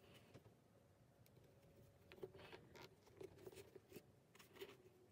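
Near silence, with faint soft scratches and rustles of white yarn and a darning needle being drawn through crocheted fabric while an ear is sewn on. The rustles come more often from about two seconds in.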